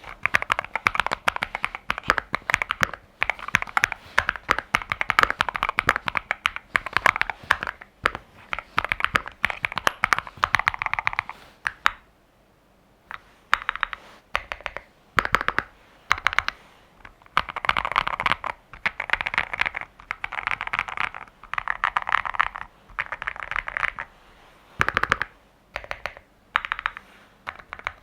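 Zuoya LMK81 mechanical keyboard with Tecsee Ice Candy linear switches and Akko PBT doubleshot keycaps being typed on in bursts of quick keystrokes. Its case has been modded with force-break and tape mods. There is a brief pause about twelve seconds in, then shorter bursts and single strokes.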